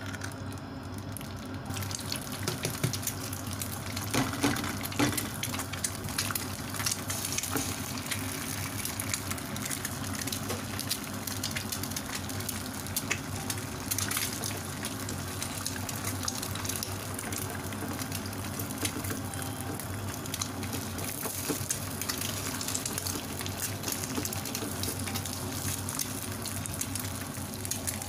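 Eggs frying in hot oil in a small nonstick pan, sizzling steadily with quick spitting crackles; the sizzle picks up about two seconds in, once the second egg is in the pan.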